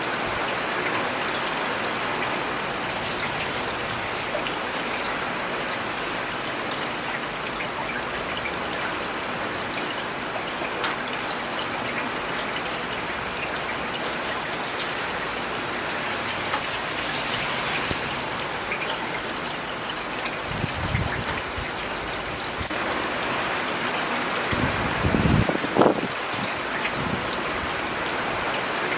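Steady rain falling, a dense even patter of drops with a few sharper ticks. Two brief low rumbles come through, about 21 and 25 seconds in, and the second is the loudest moment.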